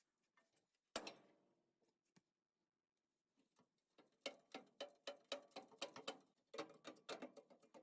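Faint, irregular clicks and light taps. There is a single knock about a second in, then a quick run of small ticks, several a second, from about four seconds on.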